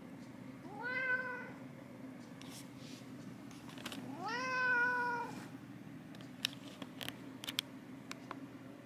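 A cat meowing twice: a short meow about a second in, then a longer, louder meow about four seconds in that rises and then holds its pitch. A few faint clicks near the end.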